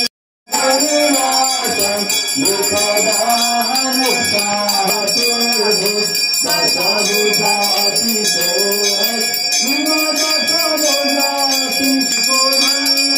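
A puja hand bell rung continuously, its ringing steady throughout, over voices chanting. There is a brief cut to silence just after the start.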